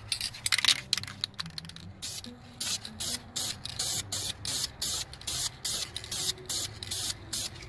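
Aerosol can of black spray paint being sprayed onto an iron bumper to cover it against rust, in many short hissing bursts, irregular at first and then a steady run of about three a second.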